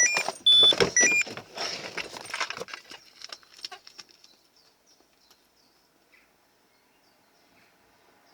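A few short electronic beeps at different pitches, overlapping a rattle of clicks and knocks like keys or gear being handled. The clicking thins out over the next two seconds and then it goes almost quiet.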